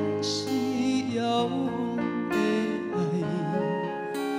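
Man singing a Taiwanese Hokkien ballad into a microphone, holding long notes with a wavering vibrato, over band accompaniment with guitar.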